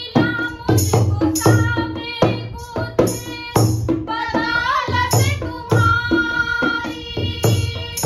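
Women singing a Hindi devotional bhajan (a Shiva bhajan) to a dholak drum beaten in a steady rhythm. A handheld plastic jingle clapper (kartal) adds bright metallic jingles on the beats.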